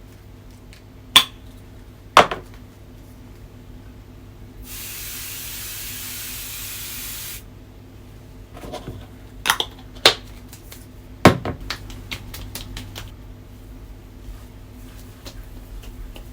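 A steady spray hiss lasting nearly three seconds, starting about five seconds in. Sharp knocks and clinks of hard objects being set down come before and after it, the loudest about a second in, two seconds in and around ten to eleven seconds in.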